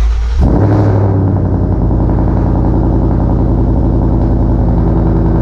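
Ford Mustang GT's 5.0 V8 cold-starting through Stainless Power headers and an MBRP Race catback exhaust. It catches about half a second in with a brief flare, then settles into a loud, steady fast idle.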